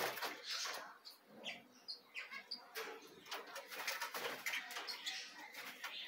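Red-rumped parrots in an aviary, giving short chirps with scattered wing flutters and clicks.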